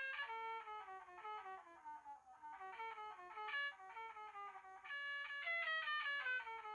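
HYKKER Classic mobile phone ringtone: a melody of short, decaying notes in a plucked, guitar-like sound, running downward in quick runs, the phrase starting over within a few seconds.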